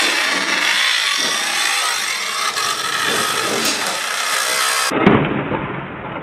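Radio-controlled 1/12-scale banger cars running on a carpet track: a dense, high-pitched whir of their small motors and gears, with scattered sharp knocks of the cars hitting each other and the barrier boards. About five seconds in there is a loud thump and the sound turns duller.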